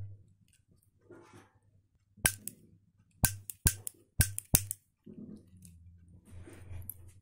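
Five sharp clicks from a small hand-held wired device being worked, the first two about a second apart and the rest quicker, over a low steady hum with some handling rustle.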